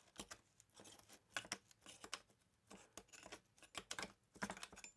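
Faint, irregular clicks and short scrapes of hand work on the old tap and die case.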